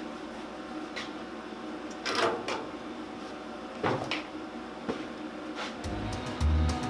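A few short knocks and clatters of metal or tools over a steady hum, the loudest about two seconds in and again about four seconds in. Music with a strong beat comes in near the end.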